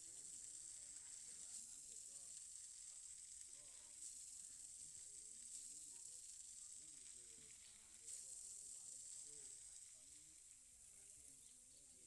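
Near silence: a faint, steady high hiss with a few faint clicks.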